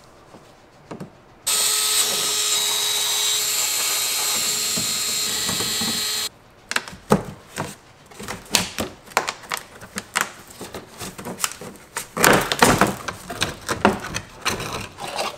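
A cordless power tool runs steadily for about five seconds, spinning out the fasteners of a plastic underbody cover beneath the fuel tank, and starts and stops abruptly. After it come irregular clicks, knocks and plastic rattling as the fasteners and the cover panel are handled and pulled down.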